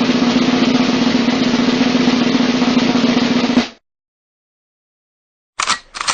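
A snare drum roll played as a comedy sound effect, running evenly for nearly four seconds and cutting off suddenly. After a pause, two short sounds come near the end.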